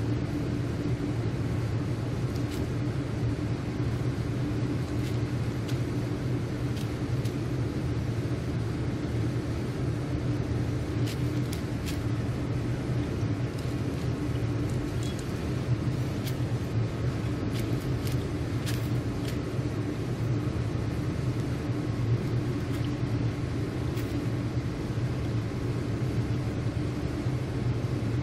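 Steady low hum throughout, with scattered faint crunching clicks of a cat chewing dry kibble and grilled fish.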